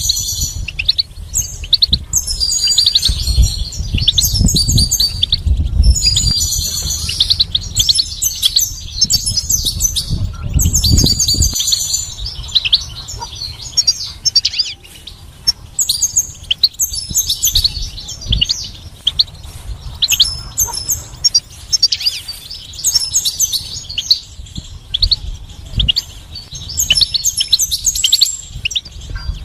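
European goldfinch singing a fast, continuous twittering song of high chirps and trills, with a low rumble underneath for the first dozen seconds or so.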